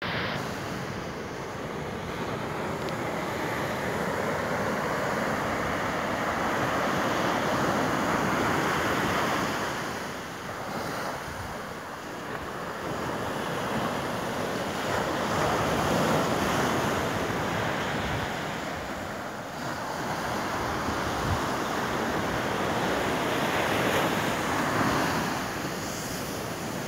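Atlantic surf breaking and washing up a sandy beach, the roar swelling and easing in slow surges several seconds apart, with wind on the microphone.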